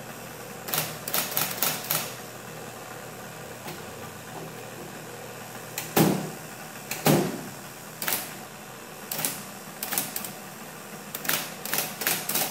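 1940s IBM Electromatic electric typewriter with its motor running in a steady hum while keys are tried, its type bars snapping in a quick cluster, then single strikes about a second apart, the loudest two about six and seven seconds in, then another cluster near the end. The keys are being tested while the carriage has stopped moving and the space bar has failed to reset.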